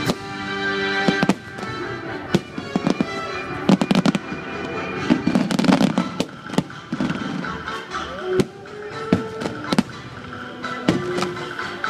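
Fireworks bursting in a series of sharp bangs and crackles, some single and some in quick clusters, over music.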